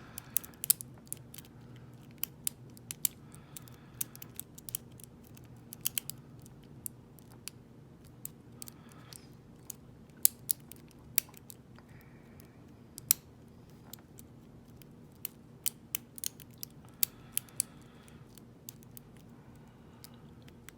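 Lock pick and tension wrench working the pins of a five-pin ISEO euro cylinder: irregular sharp metallic clicks and ticks, a few at a time, as pins are lifted and set.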